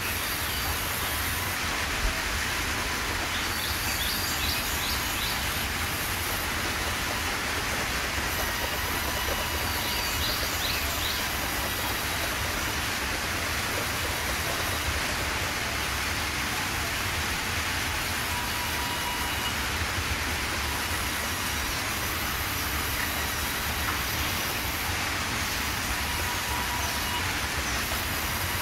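Large industrial band sawmill running steadily, with a constant low rumble and hiss as logs are fed through and cut. A couple of brief high rattles come through, about four and ten seconds in.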